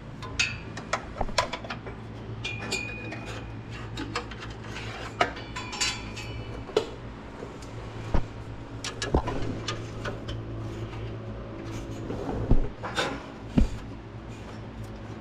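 Irregular light metallic clinks and rattles of tools and metal parts being handled while hunting for a dropped socket around a truck, over a steady low hum.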